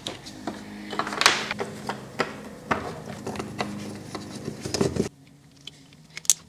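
Plastic wiring-harness connectors and corrugated wiring loom being handled and plugged together: a run of clicks, taps and rustling, dropping to a few faint clicks about five seconds in.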